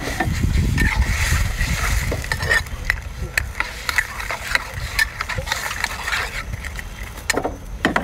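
Seafood sizzling in a hot wok over a gas burner, freshly doused with vinegar and cooking wine, while a metal ladle stirs it, scraping and clinking against the wok; the clinks come thick from about three seconds in and stop near the end, over a low rumble.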